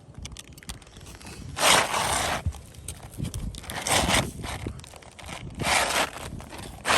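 An old asphalt shingle scraping and crackling as it is worked back into place under the shingles around it, in several rough bursts, the longest about two seconds in.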